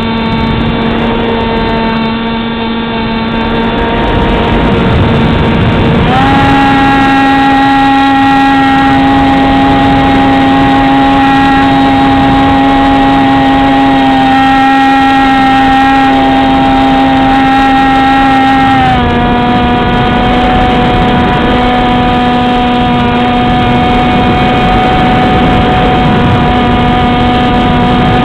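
Beta 1400 RC model airplane's motor and propeller running steadily, heard from a camera on board, over a rushing wind noise. The whine steps up in pitch about six seconds in as the throttle is opened, and drops back around nineteen seconds.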